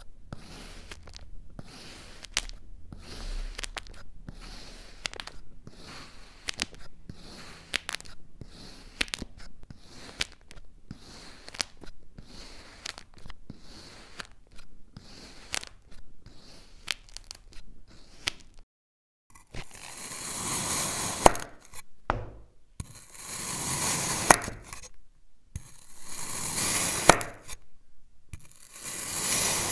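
Packed sand being cut: many short, quick scraping cuts as a shaped cutter is pressed into a sand dome. After a short gap, about four longer, louder hissing strokes follow as a thin blade slices down through a block of sand.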